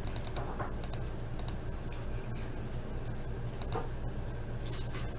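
Scattered computer keyboard keystrokes, a few irregular clicks, over a steady low hum.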